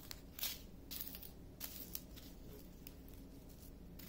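Faint crinkling of small clear plastic bags of diamond painting drills being handled and set down, a few brief rustles mostly in the first two seconds.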